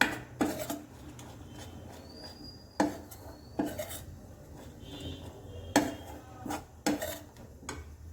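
A spoon clinking and scraping against a kadhai while gram flour is stirred and roasted in ghee: about six sharp knocks at uneven intervals over a low steady hum.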